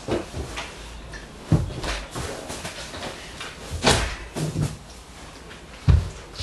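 Knocks and thumps of someone climbing on a wooden frame, with a sharp knock about two-thirds of the way through and a heavy thud near the end as he gets back down to the floor.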